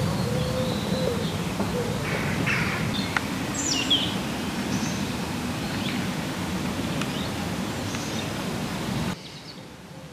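Birds chirping and calling over a steady low outdoor rumble. About nine seconds in, the rumble drops away suddenly, leaving quieter background with faint chirps.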